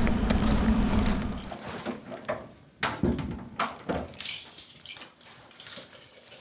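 A steady low rumble that stops abruptly about a second and a half in, followed by a scatter of short knocks and clicks that fade toward the end.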